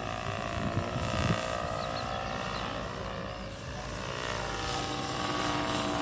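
Radio-controlled scale model helicopters in flight: a steady whine of rotors and motors with several held pitches, drifting slightly. It grows louder near the end.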